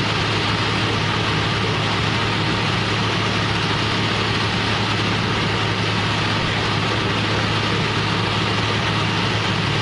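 Concrete mixer truck's diesel engine running steadily, with an even low hum.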